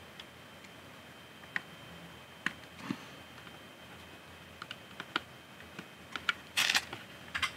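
Small plastic Lego pieces clicking and tapping as they are handled and pressed onto a baseplate: scattered single clicks, with a louder short cluster of clicks and rattling near the end.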